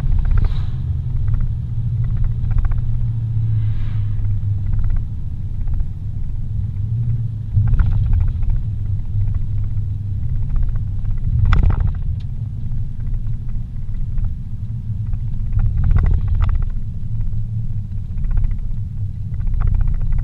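Steady low rumble of a car's engine and tyres on pavement, heard inside the cabin while driving along. Three brief knocks come roughly four seconds apart, near the middle and later on.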